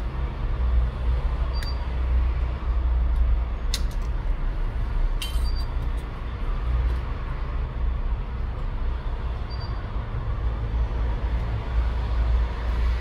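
A steady low hum with a few sharp, light clicks on top, the clearest about two, four and five seconds in.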